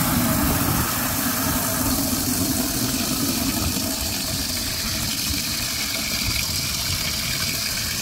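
Garden hose spraying water into an empty fountain basin, a steady splashing rush as the basin fills.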